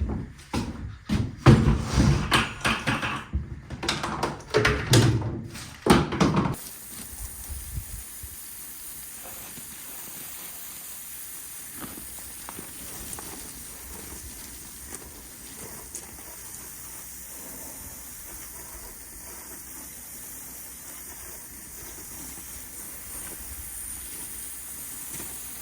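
Clattering and knocking of tools and gear being lifted out of a pickup's truck-bed toolbox for about six seconds. This gives way abruptly to a steady hiss of outdoor air noise.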